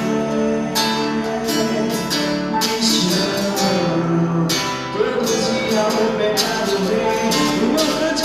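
Live worship band playing a passage without vocals, guitar to the fore, over a steady beat of sharp hits.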